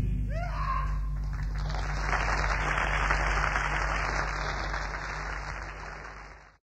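Audience applause at the end of a live rock number. It builds about a second and a half in over a steady low hum, with a few short gliding tones in the first second, and then cuts off abruptly.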